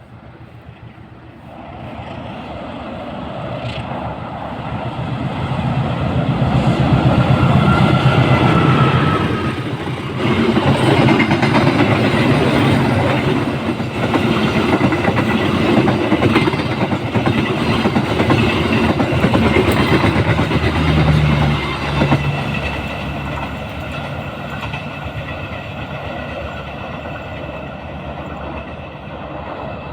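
A diesel-hauled train passing: the locomotive engine's rumble grows louder over the first several seconds, then the train goes by with wheels clattering on the rail joints for about ten seconds before it drops to a lower, steady running sound.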